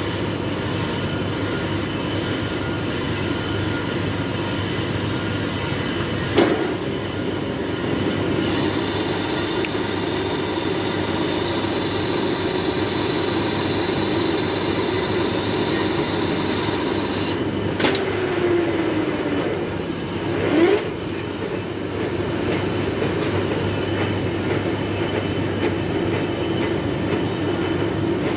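Metal lathe running steadily while turning a large iron workpiece, with a high metallic squeal lasting about nine seconds in the middle and a few sharp knocks.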